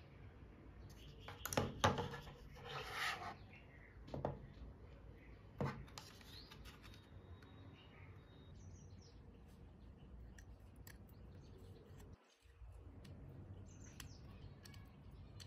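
3D-printed plastic parts of a model turbojet engine kit being handled and fitted together. A few clicks and knocks and a short scraping rub come in the first six seconds, followed by faint small ticks.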